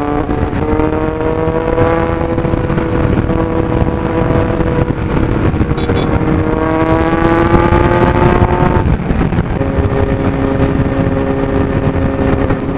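Kawasaki Z900's inline-four engine pulling on the open road, its pitch climbing slowly for about nine seconds. There is a short break, and then it runs steady at a lower pitch. Heavy wind rush sits under the engine.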